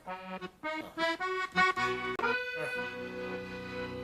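Background music: a quick tune of short, stepped notes that ends on a long held chord.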